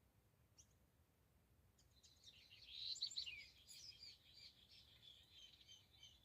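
Songbird twittering song starting about two seconds in, loudest shortly after it begins, then a string of quick high chirps.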